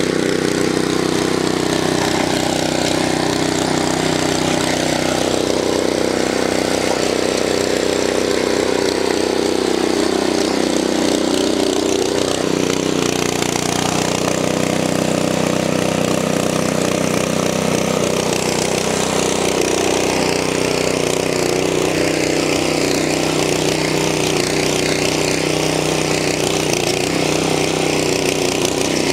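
Earthquake Victory rear-tine tiller running at full throttle as its tines dig into hard ground on a first pass. The engine note sags and recovers a couple of times in the first half as the load changes, then holds steady.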